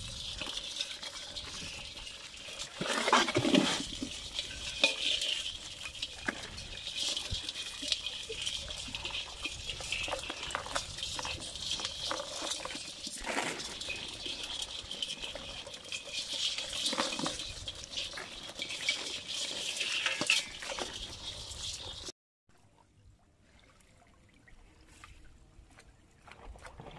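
Live freshwater crabs and fish crammed in a tub, scrabbling and clicking against its sides in a dense, continuous crackle, with a few louder knocks now and then. About 22 seconds in it cuts off suddenly to faint, quiet background.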